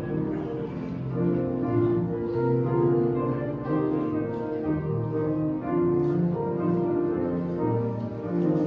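Slow instrumental music on a keyboard instrument, piano-like, playing held notes and chords.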